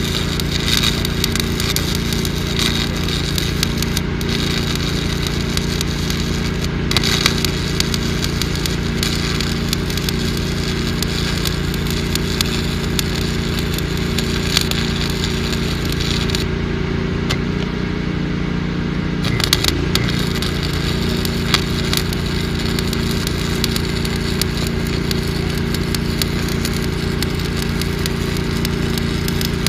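Pipe-welding arc crackling steadily over the steady hum of an engine. The crackle stops for a few seconds a little past the middle, then strikes up again.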